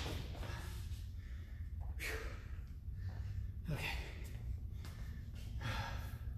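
A man breathing hard from exertion mid-workout: four heavy, noisy breaths about two seconds apart, over a low steady rumble.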